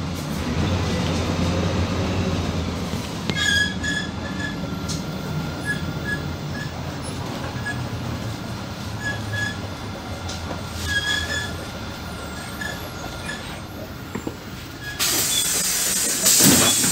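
PAZ 4234-04 bus heard from inside the cabin, its engine droning low as it slows, with short high squeaks from the brakes. About fifteen seconds in, a loud hiss of compressed air sets in suddenly and holds.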